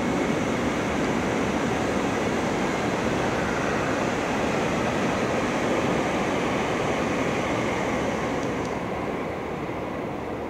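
Shinkansen bullet train passing at high speed: a steady rushing noise that fades near the end.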